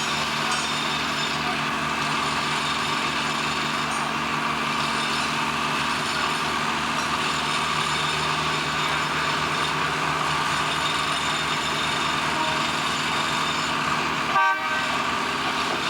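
Steady machinery drone with several unchanging hum tones under it, broken by a brief dropout and click about a second and a half before the end.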